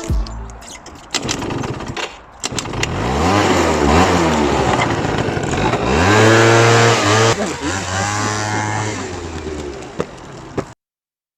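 Two-stroke 50cc Yamaha Slider scooter engine revving up and down several times, then holding a steadier pitch before the sound cuts off abruptly near the end.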